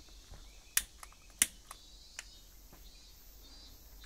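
A long-nosed barbecue lighter clicking as its trigger is pulled over and over to spark a flame under wood kindling: about six short, sharp clicks, the loudest about a second and a half in.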